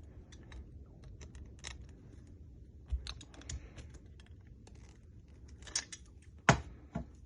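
Scattered small clicks and taps of a hinge pin being worked and pressed into a 3D-printed replacement Packout latch, with a sharper knock about six and a half seconds in.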